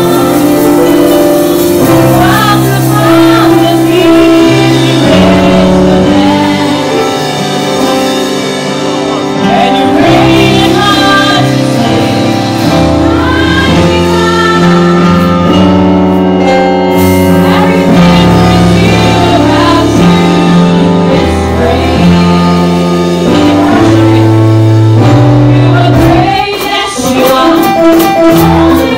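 Live gospel worship music: women's voices singing over sustained chords from a Yamaha Motif XF8 synthesizer keyboard, with sharp percussion hits near the end.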